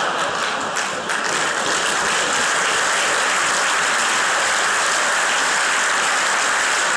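Audience applauding: steady, dense clapping from a seated crowd.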